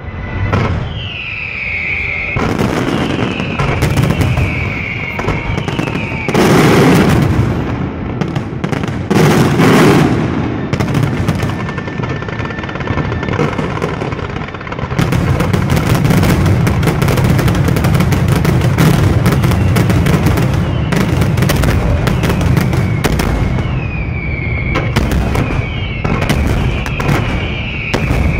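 Fireworks display going off: a rapid series of bangs and crackling, with two big booms about 6 and 10 seconds in and a dense barrage of reports from about halfway to the end. Repeated falling whistles from whistling fireworks sound near the start and again near the end.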